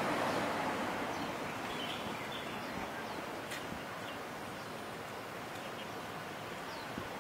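Steady outdoor background noise that fades over the first couple of seconds, with faint bird chirps scattered through.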